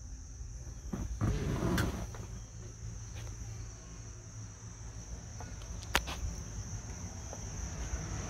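Crickets chirring steadily, a high constant drone, with low rumble beneath, a brief louder rustle about a second in, and a couple of sharp clicks, one about two seconds in and one near six seconds.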